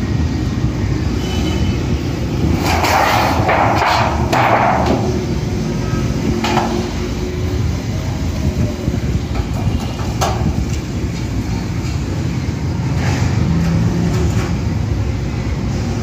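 Metal clanks and rattles from a satellite dish's steel stand rods and the dish being handled during assembly: a cluster about three seconds in, then single knocks around six and ten seconds, over a steady low rumble.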